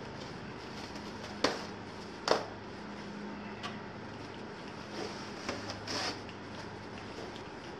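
Handling noises while a flexible solar panel is unpacked from its cardboard box: two sharp clicks about a second and a half and two seconds in, lighter ticks after, and a brief crinkle of packaging near the end, over a steady low hum.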